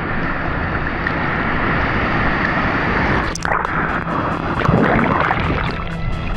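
Seawater rushing and churning against an action camera in the surf, with wind noise on the microphone and a sharp splash about three seconds in.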